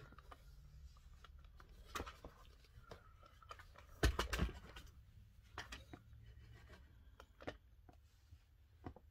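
Handling noise as a camera is picked up, carried and set down: scattered clicks and rustles, with a louder cluster of knocks about four seconds in.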